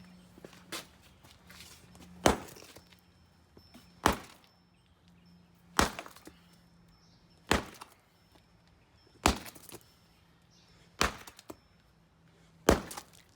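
Heavy blows, likely a sledgehammer, breaking up a concrete slab: seven sharp strikes at an even pace, about one every second and a half.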